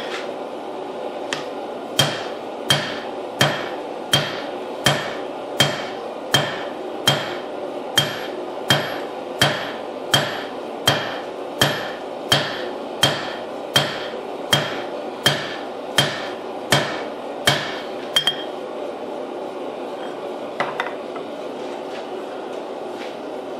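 Hammer blows on a glowing damascus billet on the anvil: about two dozen evenly spaced strikes, a bit faster than one a second, each with a short ring, stopping a few seconds before the end. This is forge welding: a spot that might not have welded is being fluxed and hammered again so the layers bond and do not split.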